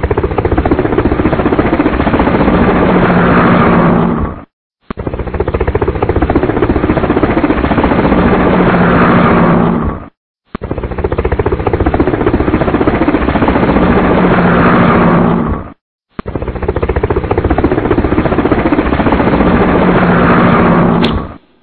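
A looped mechanical sound effect: a fast pulsing rumble over a steady low hum, the same clip of about five seconds played four times with short breaks between.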